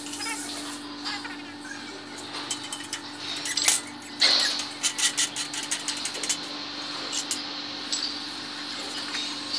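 Steel parts clinking as a connecting rod and mandrel are set on a support sleeve under a hydraulic shop press, then a loud sharp crack a little under four seconds in as the old small-end bushing is pressed out, followed by lighter metallic clicks. A steady low hum runs underneath.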